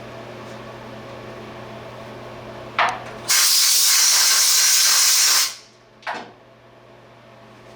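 A compressed-air blow gun hisses loudly for about two seconds, blowing chips and dirt out of the lathe chuck. The hiss starts suddenly and tails off, with a short click just before it and another just after.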